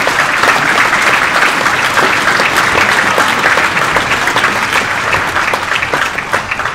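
Audience applauding: many people clapping together, steady and loud, easing off near the end.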